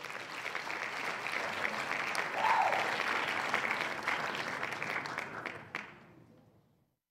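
Audience applause, with a single brief shout rising and falling in pitch near the middle; it fades out about a second before the end.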